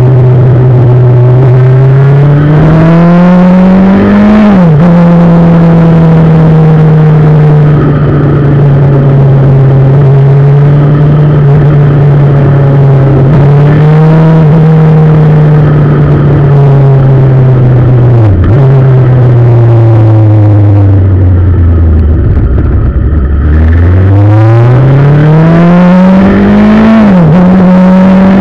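Motorcycle engine heard from on board, over steady wind noise. It pulls with rising pitch and shifts up a few seconds in, holds a steady cruise, winds down in pitch to a low ebb about three-quarters of the way through, then pulls again and shifts up near the end.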